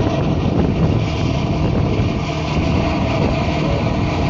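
Steady drone of a sightseeing boat's engine running under way, with a low hum and wind rushing across the microphone.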